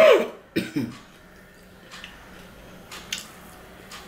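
A man coughs twice into his fist, a loud cough with a falling pitch followed about half a second later by a second, shorter one. Afterwards there are only faint soft clicks of eating by hand.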